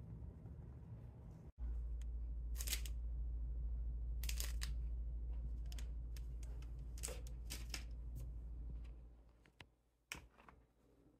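Electric kettle heating water: a steady low rumble with occasional hissing surges, which dies away about nine seconds in, followed by a single sharp click.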